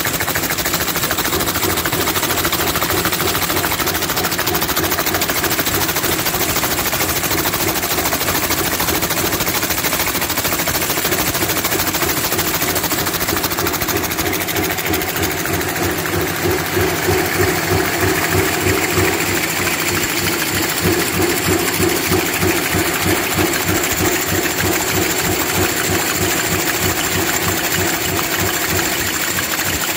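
Double production line for aerosol can bottoms running at speed (400 ends a minute per line): steady machine noise with a fast, even metallic clatter, swelling slightly louder in the middle.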